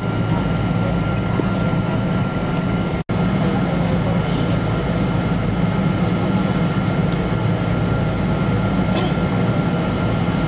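Steady jet airliner cabin noise while taxiing: a constant engine hum with a thin steady whine above it. The sound cuts out for an instant about three seconds in.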